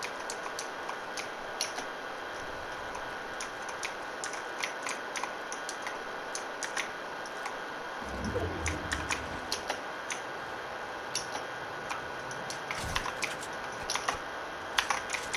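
Irregular clicking of mechanical keyboard keys and Logitech G502 Hero mouse buttons during fast PC gaming, over a faint steady hum, with a brief low rumble a little past halfway.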